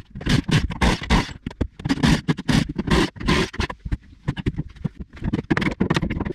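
Saw blade cutting through car body sheet metal in rough, scraping strokes, about three a second.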